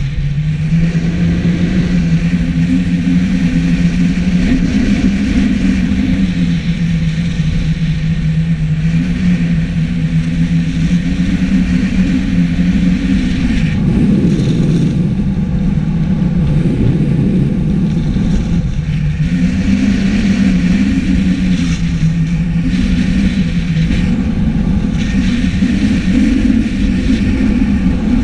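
Wind rushing over an action camera's microphone while skiing downhill, with skis running on packed snow. A low droning hum steps slowly up and down in pitch throughout.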